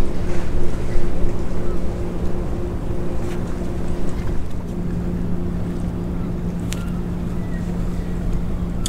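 Small boat's outboard motor running slowly with a steady hum, with wind buffeting the microphone.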